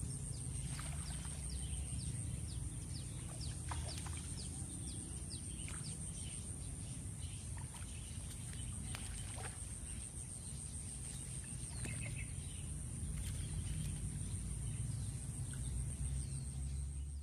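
Outdoor ambience: small birds chirping with short, falling notes, many in the first few seconds and scattered after, over a steady high-pitched hum and a low rumble.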